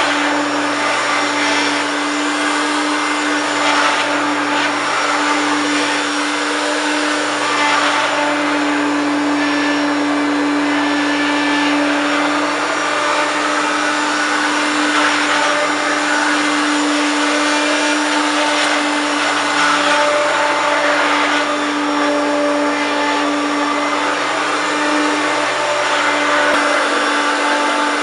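1993 Hoover Turbopower 1 U2798 vacuum cleaner running steadily: a constant motor rush with a steady hum.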